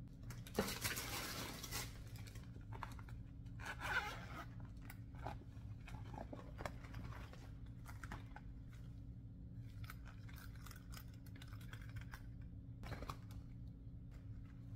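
Packaging and clear vinyl bags being unwrapped and handled, with irregular crinkling and rustling, louder near the start and again about four seconds in. A low steady hum runs underneath.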